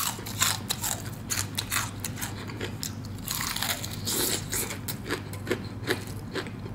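Close-up crunching and chewing as the crisp, craggy crust of a deep-fried chicken drumstick is bitten into: many sharp crackles, one after another, with wet chewing between them.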